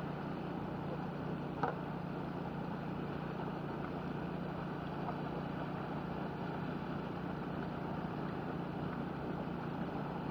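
Steam venting steadily from a hot crater vent: a constant rushing noise with a low hum beneath it. A single short click about a second and a half in.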